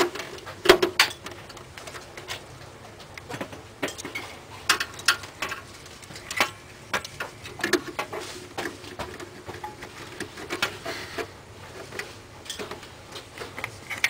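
Scattered metallic clicks and clinks of a screwdriver and screws against the steel drive cage of a PC case as a DVD drive is screwed into its bay.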